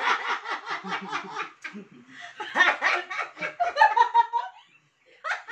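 A group of adults, a man and women, laughing heartily together in rapid ha-ha pulses. A first long run of laughter is followed by a second burst about two and a half seconds in, and it dies away shortly before the end.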